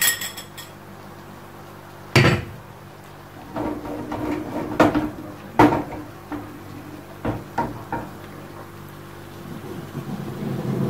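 Frying pan knocking and scraping on the gas stove's grate as it is shifted and tilted over the burner. There are several separate clunks, the loudest about two seconds in.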